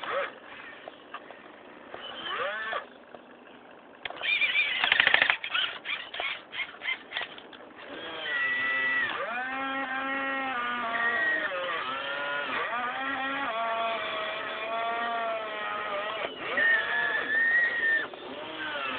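Radio-controlled excavator's small electric motors whining, the pitch rising and falling as they work. A loud rapid clattering of clicks comes about four seconds in and lasts several seconds.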